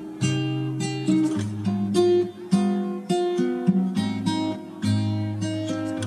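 Background music on acoustic guitar: plucked chords struck about once a second over low bass notes.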